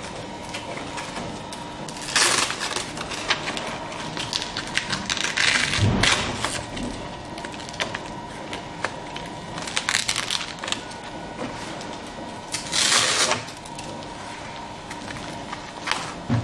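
Forearm strap being pulled tight and pressed shut around the arm: four short ripping noises, about two, five to six, ten and thirteen seconds in, with fabric rustling and handling between.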